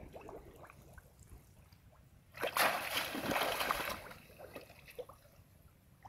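Shallow muddy water splashing as a person wades and crouches down in it, hands and a wicker basket moving through the water. Small splashes, then a loud burst of splashing lasting about a second and a half near the middle.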